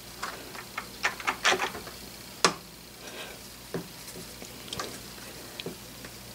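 Light, irregular metal clicks and scrapes of an aluminum crossfeed dial and its collar being fitted onto the shaft and turned by hand; the sharpest click comes about two and a half seconds in.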